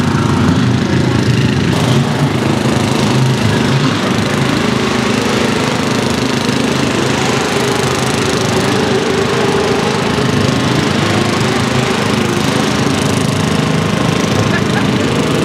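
Lifted off-road riding lawn mower's small engine running steadily as the mower crawls over rough ground.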